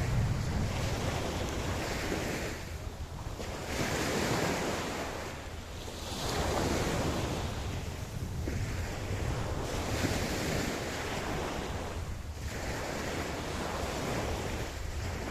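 Ocean waves washing onto a beach, the surf swelling and easing every few seconds, with a steady low rumble underneath.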